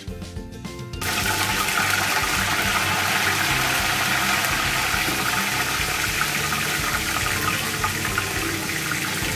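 Fresh curry leaves hitting hot oil with mustard seeds and cumin in a kadai: a loud, steady sizzle that starts suddenly about a second in, the leaves' moisture spitting and frying in the oil for the tempering.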